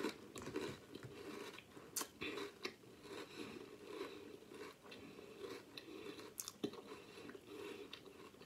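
A person chewing a mouthful of crunchy Drumstick mint chocolate chip cereal: an irregular run of crunches with a few sharper cracks about two seconds in and again near the end.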